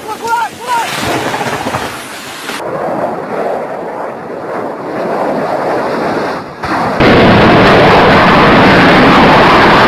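Rumbling, thunder-like noise of crash footage, then about seven seconds in a much louder, steady roar of a fighter jet's engines running at full power with afterburner.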